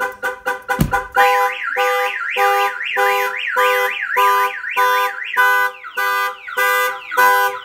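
Viper 5305V car alarm siren going off after the door is opened, cycling through its tones. First come rapid beeps, then a fast rising-and-falling warble over a pulsing tone, then the pulsing tone alone at about two beats a second. A single thump sounds about a second in.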